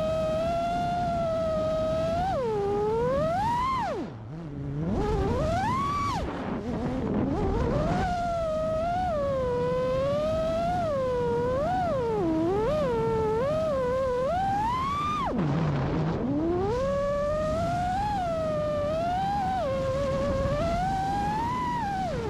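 FPV freestyle quadcopter's brushless motors and props whining, the pitch sweeping up and down constantly with the throttle. It drops to a low hum briefly about four seconds in and again about fifteen seconds in, then climbs back.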